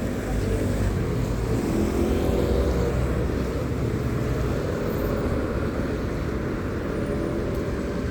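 Steady low rumble of road traffic and wind on the microphone while riding along a city street, with a faint, wavering engine-like hum in the middle of the sound.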